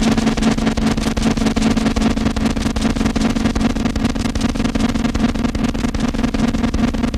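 Harsh noise music: a dense, steady wall of distorted electronic noise over a loud low drone, with a fast crackling flutter.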